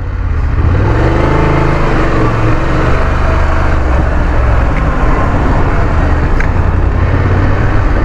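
BMW F 850 GS parallel-twin motorcycle engine under way, its note climbing over the first few seconds as the bike gets up to speed, then holding steady under a constant rush of wind and road noise.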